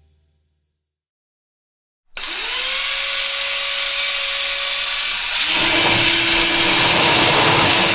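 About two seconds of silence, then a power tool starts suddenly, its motor whining up to speed and running steadily. A little after five seconds in it gets louder and its note drops lower.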